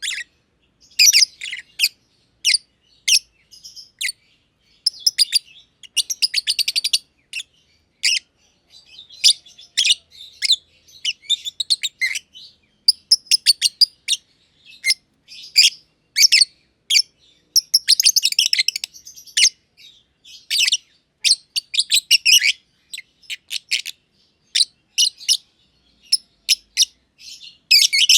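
Masked lovebirds (Agapornis personatus) chirping: rapid strings of short, high-pitched chirps in quick clusters, broken by brief pauses.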